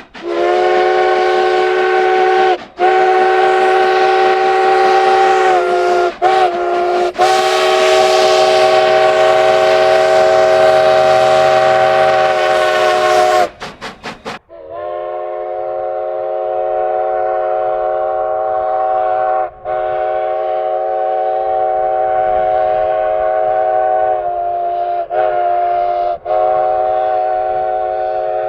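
A multi-note locomotive chime sounding two long blasts of about thirteen seconds each. Each blast is a chord of several steady notes with a few brief breaks. The second blast is duller than the first.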